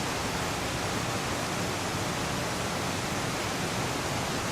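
Creek water rushing, a steady even noise close to the microphone.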